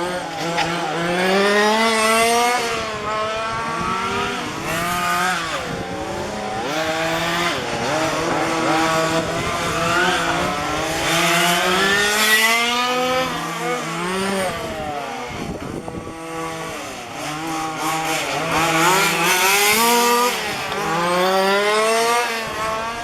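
Several 1:5-scale petrol RC cars' small two-stroke engines revving up and down as they lap, their overlapping pitches repeatedly rising and falling.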